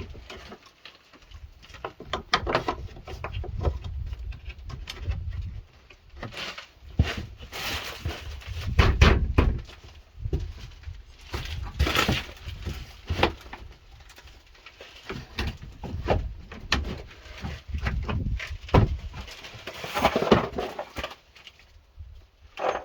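Irregular knocks, clicks and rattles of Keter plastic shed parts being handled and fitted together while the roof frame is assembled, with bursts of low rumble between them.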